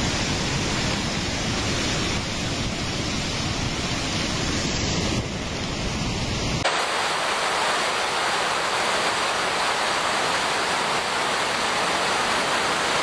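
Floodwater rushing over rocks in a swollen river: a steady, loud wash of water noise, which changes abruptly to a thinner, hissier sound about six and a half seconds in as a different stretch of torrent is heard.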